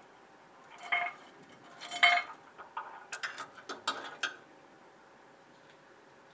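Metal tweezers clinking against a small metal cup as it is lifted off a homemade beer-can alcohol stove: two ringing clinks about one and two seconds in, then a quick run of lighter clicks and taps until about four seconds in.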